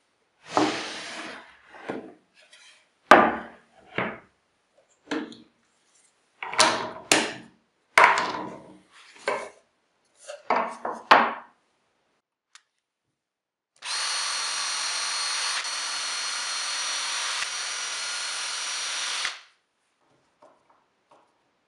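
Wooden boards handled on a workbench, a string of knocks and scrapes as they are picked up, set down and slid. Then a power drill runs steadily with a high whine for about five seconds and stops abruptly.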